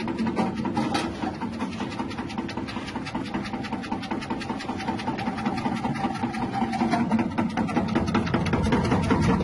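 Electric cassava slicing machine with a 180-watt motor running, giving a steady mechanical whir with a rapid, even train of clicks.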